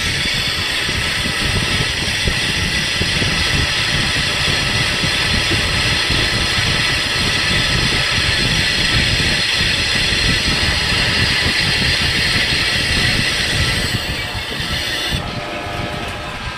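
Loud, steady machine noise with a hissing high band over a crackling low rumble, easing off in two steps near the end.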